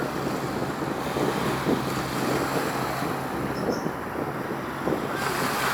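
Wind buffeting the microphone in uneven gusts, over a faint steady low hum.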